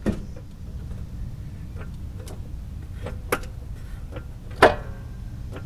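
Several sharp knocks and clicks from tools and a jack being handled under a car, with a steady low rumble beneath. The loudest knock comes about four and a half seconds in and rings on briefly.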